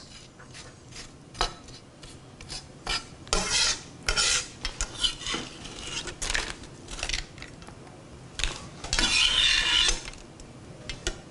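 Knife blade scraping across a wooden cutting board, clearing seeds off a roasted poblano pepper: a string of short, irregular scrapes with a longer one near the end.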